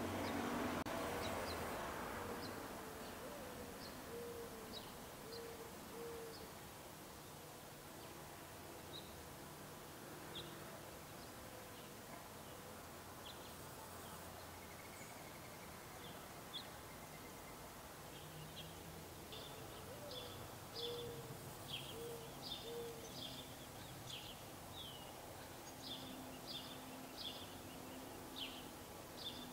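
Gambel's quail chicks peeping while brooded under the hen: thin high peeps, sparse at first, then coming in quick runs over the last third. A soft series of low cooing notes is heard twice, and a rush of noise fades out over the first few seconds.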